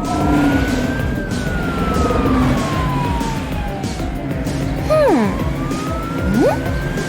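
A siren wailing slowly up and down, each rise and fall taking a few seconds, over a rhythmic music bed. Two quick swooping sound effects cut in about five and six and a half seconds in.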